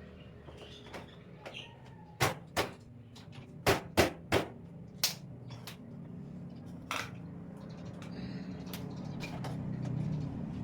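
Shoe rack parts knocking and clicking as they are handled and fitted together: a scattered series of sharp knocks, loudest in a cluster around the middle, over a low steady hum that grows a little louder near the end.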